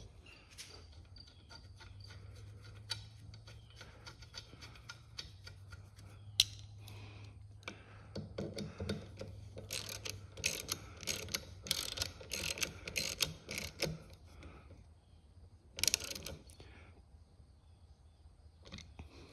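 Socket ratchet wrench with a hex bit clicking as it drives the screws of a metal mounting flange. Scattered light clicks at first, then runs of rapid ratchet clicking through the middle and one short run near the end.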